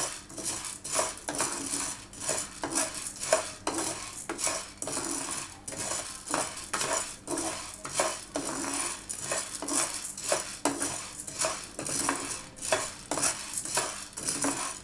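Puffed sago pearls being dry-roasted and stirred in a nonstick frying pan with a spatula: repeated scraping and rattling strokes of spatula and pearls against the pan, about two a second.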